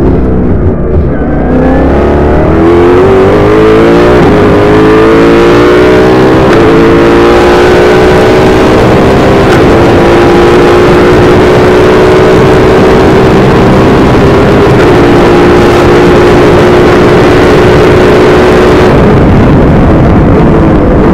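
AF01 open-wheel race car's engine heard loud from the cockpit on a flying lap. Its pitch falls as the driver comes off the throttle at the start, climbs through the gears over the next few seconds, holds high and steady down a straight, then falls again near the end.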